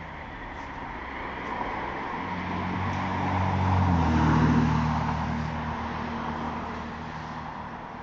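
A car passing by on the road. Its engine and tyre noise grow louder to a peak about halfway through, and the engine's pitch drops as it goes past before it fades away.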